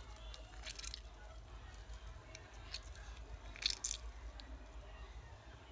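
Faint scattered clicks and a few short, soft rustles over a low steady hum.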